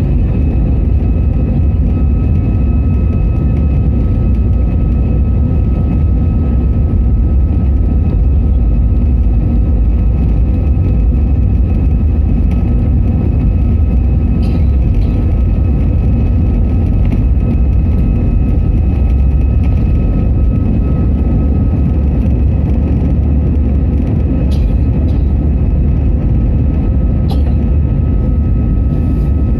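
Steady engine and airflow roar inside the cabin of an Airbus A320-200 airliner, with a few steady whining tones over it and an unchanging level. A few faint clicks sound near the middle and end.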